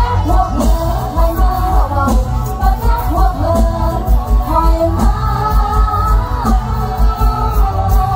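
A woman singing a mor lam song with a live band, over a steady bass-drum beat.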